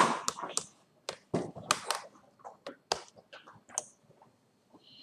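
Plastic laptop parts being handled: a clatter of plastic knocks at the start, then a few separate sharp clicks and taps.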